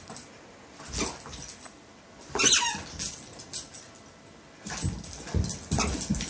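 A West Highland white terrier and a bulldog playing rough: short bursts of barking, with a high wavering whimper about two and a half seconds in and a quick run of barks near the end.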